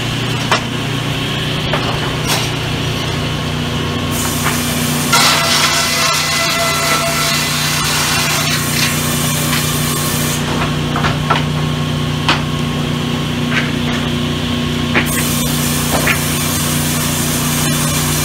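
Sawmill saws running with a steady motor hum, with two long stretches of louder noise of the blade cutting through timber, one starting about four seconds in and another near the end. Scattered sharp knocks of boards being handled.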